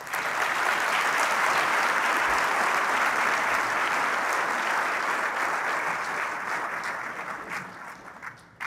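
An audience applauding at the end of a speech. The applause starts at once and dies away over the last few seconds.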